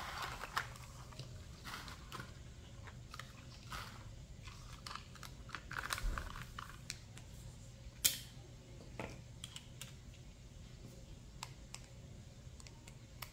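Small hard plastic doll accessories being picked up and handled: irregular light clicks and taps of plastic on plastic, with one sharper click about eight seconds in.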